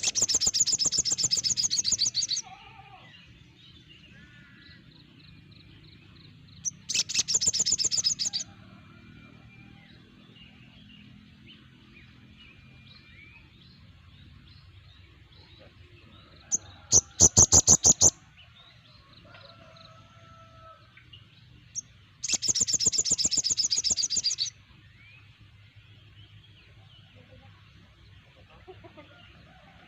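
Group of sogon birds calling: four loud bursts of rapid, rattling repeated high notes, each lasting one to two seconds, spaced several seconds apart, with faint scattered chirps between them. A recording of this kind is used as a lure to bring captive sogon into song.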